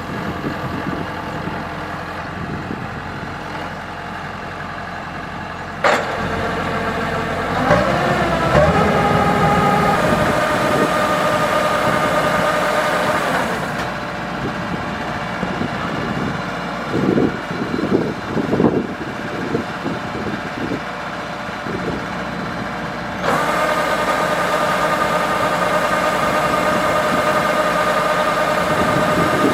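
Kubota DC-105X combine harvester running: the engine runs at a low speed, then revs up about a quarter of the way in to a steady higher note. It eases back around the middle with a few clunks, and picks up to the higher speed again about three-quarters through.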